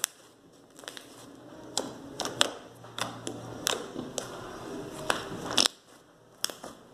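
Clay-based butter slime being squeezed and pressed by hand, making irregular sharp clicks and crackles at uneven intervals, with a brief lull near the end.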